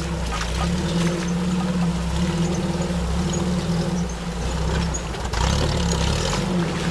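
An engine running steadily, its low hum swelling and dipping a little.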